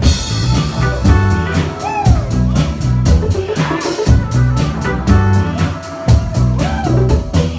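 Live band playing with a steady drum kit beat, bass and guitar.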